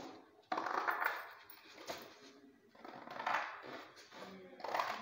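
Sheets of stiff yellow paper handled by hand, rustling and flapping in four short bursts, with light clinking from glass bangles on the moving wrist.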